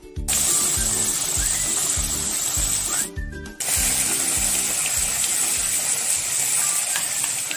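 Background music with a steady beat over a steady hiss of red chili paste sizzling in oil in a wok. The sound drops out briefly about three seconds in.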